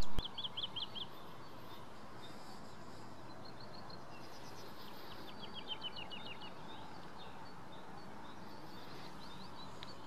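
Woodlark singing: three short phrases of quick repeated, falling notes, the longest in the middle, over a steady outdoor background hiss.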